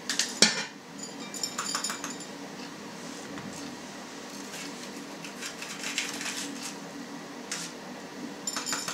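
Kitchen knife and hands coring a red bell pepper: scattered light clicks and taps of the knife against the cutting board and a plate, the sharpest about half a second in and a cluster near the end, over a faint steady low hum.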